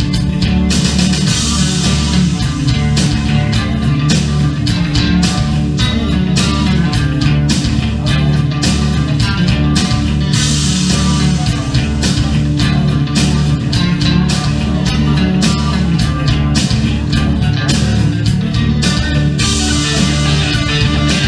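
Loud amplified live rock music: an instrumental passage with guitar over a steady drum beat, with no singing.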